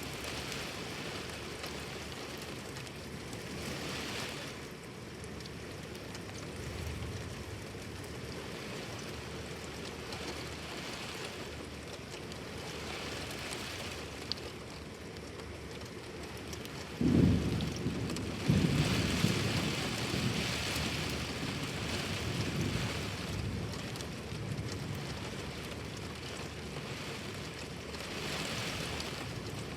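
Heavy rain falling steadily during a thunderstorm. About 17 seconds in, a sudden loud thunderclap, followed a second later by a second crack that rolls on as rumbling thunder and fades over a few seconds.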